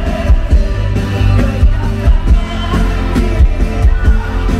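Live rock band playing amplified music: electric guitars, bass guitar, keyboards and a drum kit over a steady drum beat.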